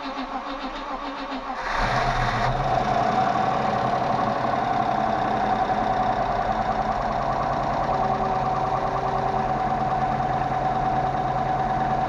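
Range Rover Classic's 3.5 V8 engine being started: a steady cranking sound, then the engine catches about two seconds in and settles into a steady run.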